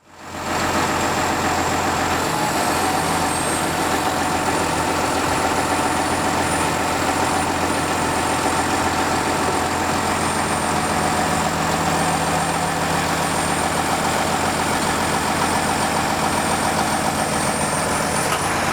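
Concrete pump truck's engine running steadily at idle, with a thin high-pitched whine over it.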